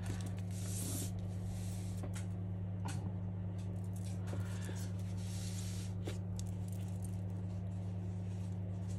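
A steady low electrical hum, with a few faint small clicks and short rustles as fingers handle parts inside an opened iPhone X.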